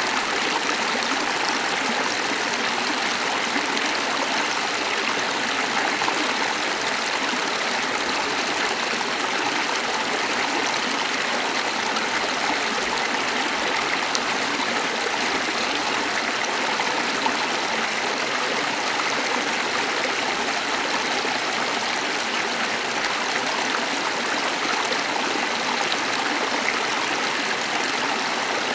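A small waterfall: water splashing and running over rocks in a steady rush.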